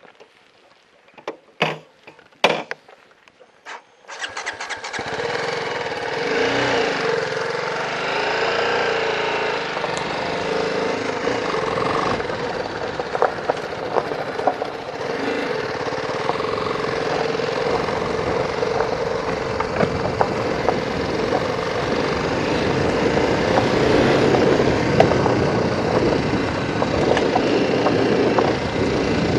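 Motorcycle engine starting up about four seconds in after a couple of sharp clicks, revving up and down a few times, then running steadily as the bike rides along a gravel track.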